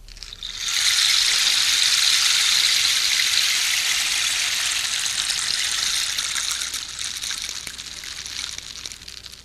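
Homemade radio sound effect of a horse urinating: a steady gushing stream of liquid that starts about half a second in, holds, then tapers off over the last few seconds.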